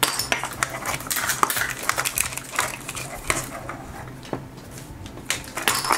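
Hard plastic pieces, the halves of a Mini Brands capsule ball and the miniature toys inside it, clicking and clattering as hands open and handle them: a scattered run of quick light clicks.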